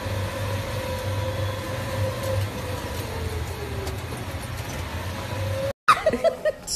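Open canopied cart running along, heard from its seat: a steady low hum with a thin steady whine that sags slightly in pitch midway. It cuts off abruptly near the end, and a brief burst of voice follows.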